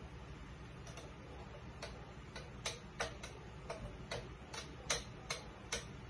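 Light, irregular clicks of a metal teaspoon tapping against the rim of a container as a spice powder is spooned into a blender jar, sparse at first and then about two or three a second.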